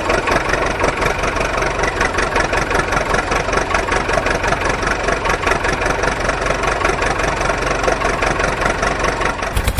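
Heavy vehicle engine idling steadily with a fast, even chug. It starts abruptly, and about half a second before the end it gives way to a harder, evenly pulsing pounding.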